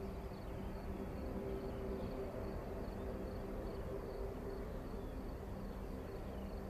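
Distant Airbus A319's CFM56 jet engines at low power as the airliner taxis onto the runway: a low, steady rumble with a hum. Insects chirp faintly over it, about twice a second.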